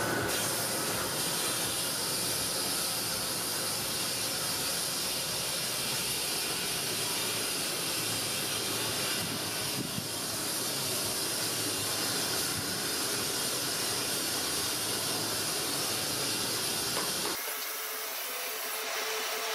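Crucible furnace burner running with a steady rushing hiss while bronze melts in the crucible. Near the end the deeper part of the sound drops away, leaving a thinner hiss.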